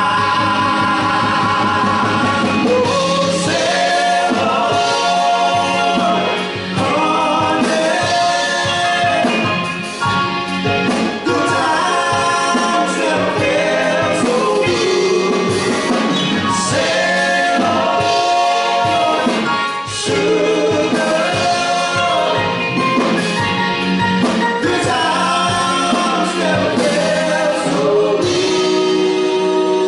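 Male vocal group singing a Motown soul number in harmony over a live band with drums. They hold a long note together near the end.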